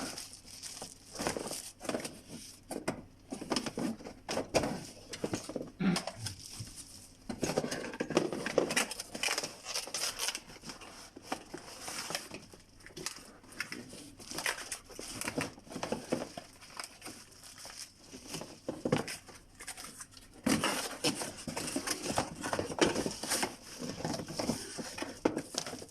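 Packaging and parts being handled during unboxing: irregular rustling and crinkling with scattered knocks and clicks throughout.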